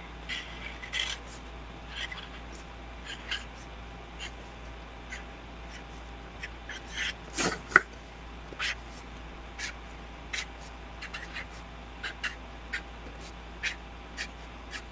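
Sharpie permanent marker writing on paper: short strokes, one or two a second, as block letters are printed, with one louder rub about halfway through.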